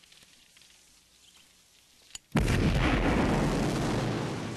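Movie explosion: a short click about two seconds in, then a sudden loud blast that keeps rumbling as it slowly dies down.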